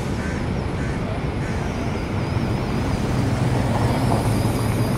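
Steady city traffic rumble, with a low engine hum growing louder about three seconds in.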